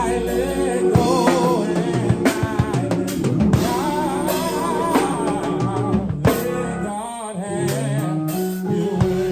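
Live worship band playing: a singer holding wavering, vibrato notes over a drum kit and sustained low chords.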